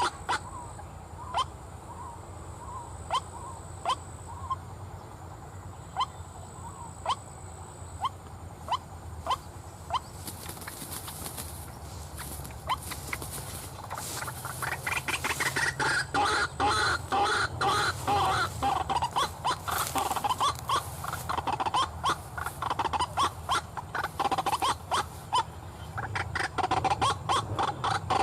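White-breasted waterhen calls. There are sharp single notes about once a second at first, and from about fourteen seconds in a fast, dense run of croaking 'kru-ak' calls.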